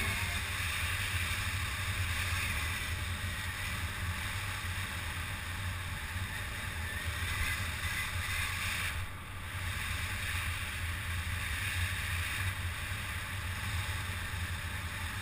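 Steady rush of airflow over a wingsuit pilot's helmet camera in flight, a deep wind rumble on the microphone under a hiss, briefly easing about nine seconds in.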